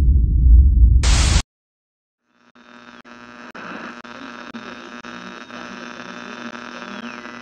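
Logo sound effects: a loud, deep rumble with a burst of hiss near the end that cuts off sharply, then about a second of silence, then a steady electric buzz and hum with static, with a faint tone gliding down and back up near the end.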